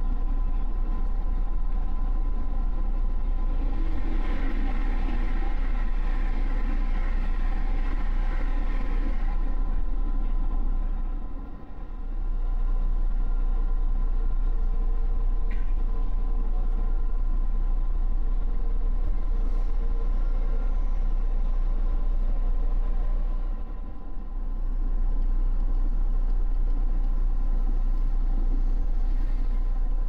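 Electric commuter train running at speed, heard from inside the front car: steady rumble of wheels on rail with a steady motor hum. The level dips briefly twice, about a third of the way in and again past the middle.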